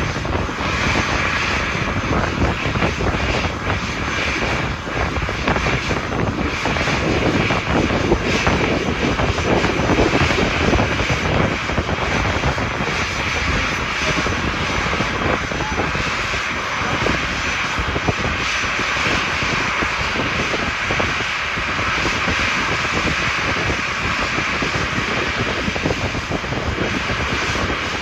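Boeing 737 jet engines running steadily, a continuous dense noise with a high whine near the top.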